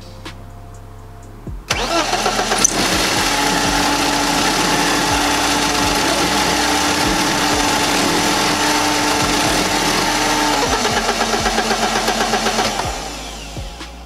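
BMW 318ti four-cylinder engine cranked on its starter, catching about two seconds in and running rough with a steady whine, sounding horrible, before dying away near the end. The starter is left engaged through a newly wired rocker start switch that the owner forgot to turn off.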